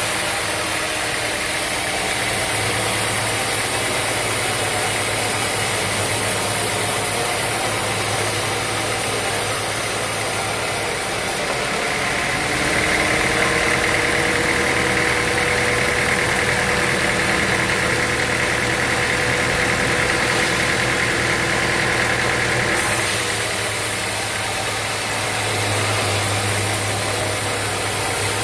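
Sawmill machinery running steadily with a motor hum. A higher whine comes in about twelve seconds in and drops away after about ten seconds.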